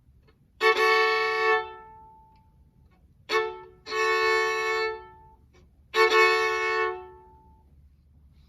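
Violin bowed in three held notes, each about a second long, with a brief short stroke just before the second; each note rings away after the bow stops.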